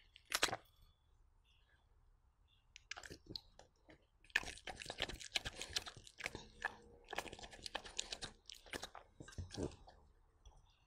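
A dog chewing sweet potato with wet crunching bites: one sharp crunch right at the start, a quiet spell, then steady crunching from about four seconds in.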